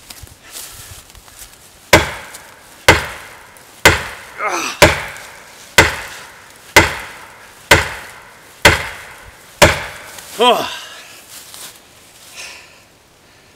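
Nine hard wooden knocks about a second apart: the neck of a Fiskars 28-inch chopping axe's handle, just below the head, is deliberately slammed against a sugar maple trunk in an overstrike test. A man's strained voice comes in between blows about halfway through, and a falling groan follows just after the last blow.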